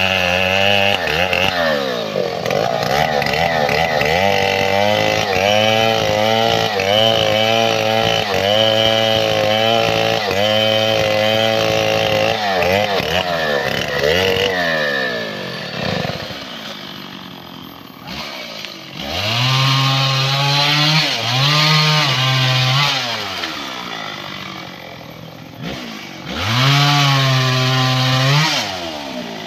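Two-stroke Stihl chainsaw cutting through a mahogany log, its engine pitch wavering as the chain bites under load. About halfway it drops back to a lower speed, then is revved up high and eased off twice more near the end.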